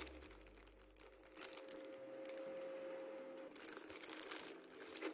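Faint crinkling of a small clear plastic zip-lock bag as it is handled and pulled open.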